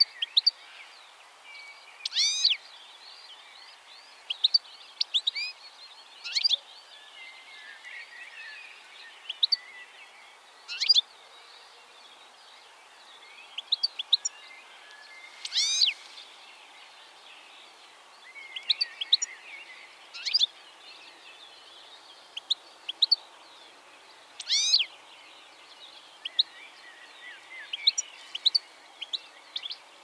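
European goldfinch calling: scattered short, high chirps and twitters, with three louder, longer calls about two seconds in, about halfway, and about five seconds from the end. A faint steady background hiss sits underneath.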